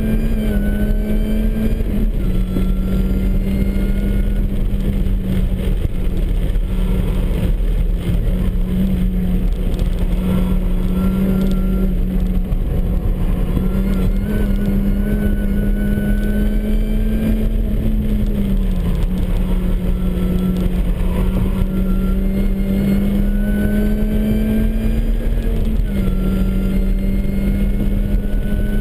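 Supercharged MINI Cooper S engine, running a reduced supercharger pulley, driven hard on track: a loud steady drone under thinner whines. The whines climb in pitch for a few seconds at a time, then drop back as it shifts or lifts, and climb again.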